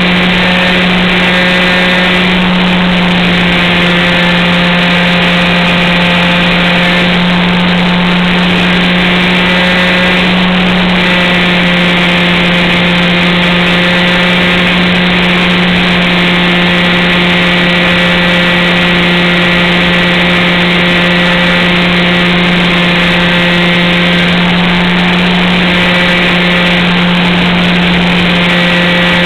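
Motor and propeller of a model airplane running at a steady, constant pitch, loud and close to the onboard camera, with a rush of air noise over it.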